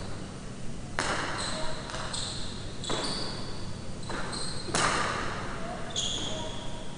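Jai alai pelota cracking against the fronton wall twice, each loud hit echoing through the hall, with softer knocks and short high squeaks in between.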